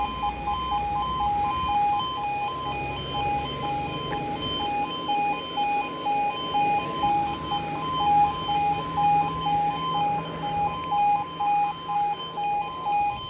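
UK level crossing audible warning sounding as a steady alternating two-tone alarm while the barriers are down. A road vehicle's engine hums low underneath.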